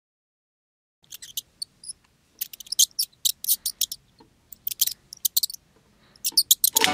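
Short clusters of quick, high-pitched mouse squeaks voicing a plush toy mouse. Music starts at the very end.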